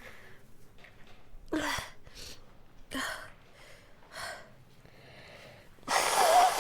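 A woman's sneezing fit: a gasping, hitching sneeze about one and a half seconds in, another about three seconds in, a smaller one a little after four seconds, and then a longer, much louder blast near the end.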